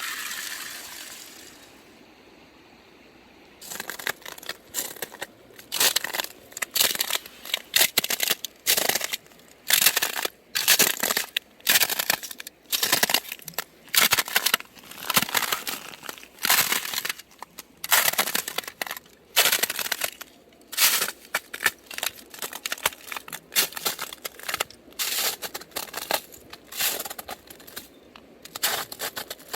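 Frozen stream ice crunching and cracking under stepping feet: a steady run of crisp crunches, about one a second, starting about four seconds in.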